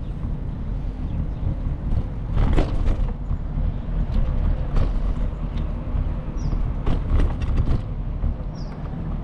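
Wind rumbling on the microphone of a moving bicycle, with rattles and knocks from the bike over bumps. There are three short, high chirps about two seconds apart.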